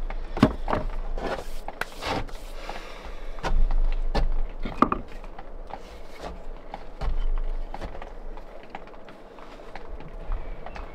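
Masonry handwork on a stone wall: a trowel scraping and tapping against stone and mortar, with irregular clicks and knocks and a longer scrape about two seconds in.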